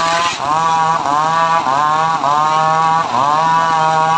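Homemade engine-driven table circular saw ripping a teak plank. The engine's pitch dips each time the blade bites into the wood and recovers as it eases off, over and over every half second to a second.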